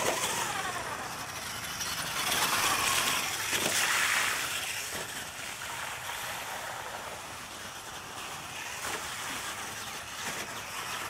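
R/C monster truck running on a timed race pass, its motor pitch falling and rising with the throttle. It grows louder with a noisy rush about two to four seconds in, then settles.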